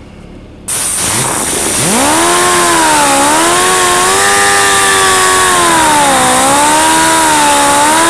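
Die grinder with a carbide bit cutting a V-groove bevel into the plastic edge of a kayak hull. A hiss cuts in suddenly about a second in, then the grinder's whine rises in pitch and wavers up and down as the bit bears into the edge.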